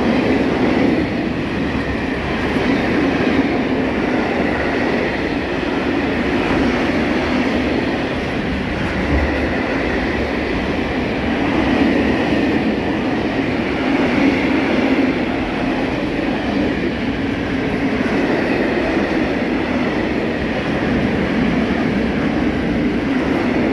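Freight train of open-top gondola wagons (Hungarian-built Eas type, 'węgarki') rolling past at close range: a loud, steady rumble of steel wheels on rail with faint clickety-clack.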